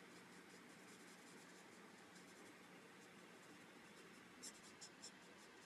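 Faint scratching of a marker tip stroking across cardstock as an image is coloured, a few quick strokes about four and a half to five seconds in, over quiet room tone.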